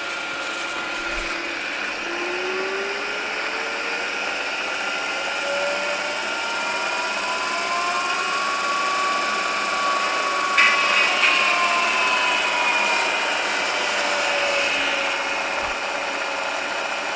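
Acra vertical milling machine's variable-speed head running in its high range, its whine gliding up in pitch as the spindle speed is dialed up, levelling off midway, then easing back down. A few short knocks are heard a little past the middle.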